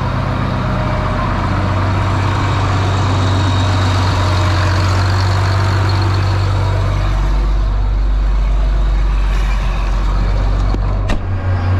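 John Deere tractor's diesel engine running steadily, heard from in and around the cab, its low note shifting about seven seconds in. A sharp knock near the end.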